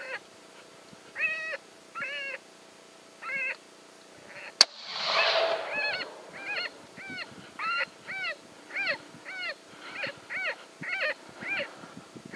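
Repeated short squealing calls, each rising and falling in pitch. A few come widely spaced, then they run at about two a second. A single sharp crack sounds about four and a half seconds in.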